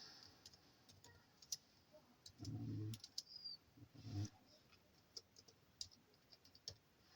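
Scattered faint clicks from a MacBook Air laptop's keyboard and trackpad as it is operated, with two brief low hums in between.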